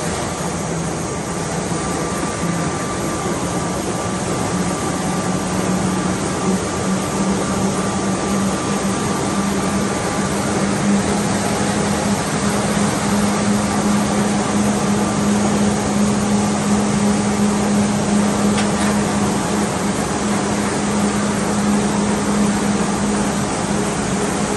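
KBA Rapida 75 sheetfed offset printing press running: a steady mechanical hum with a low drone that rises slightly in pitch about six seconds in.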